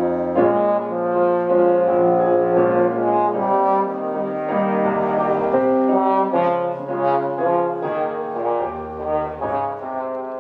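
Trombone playing a melody of held notes over electric keyboard accompaniment.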